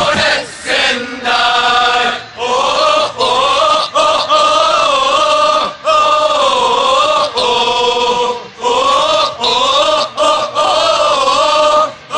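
Football supporters' section singing a chant together, mostly men's voices, in long phrases broken by short pauses every second or two.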